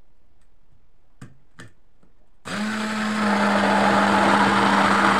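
Two light knocks, then an immersion blender switches on and runs steadily, blending egg, mustard and oil into homemade mayonnaise; its motor hum settles to a slightly lower pitch just after starting.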